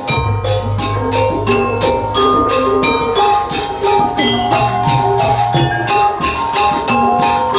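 Traditional Banyuwangi gandrung ensemble music: a steady beat of sharp percussion strikes, about four a second, under a held, wavering melody line.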